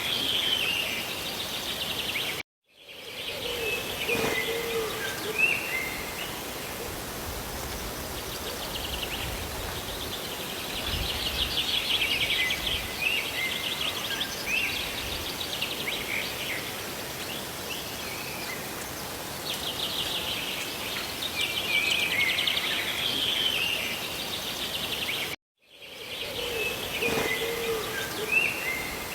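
Steady rush of rain and falling water, with small birds chirping in bursts over it. The sound cuts out for a moment twice, about two and a half seconds in and near the end, where the looped recording restarts.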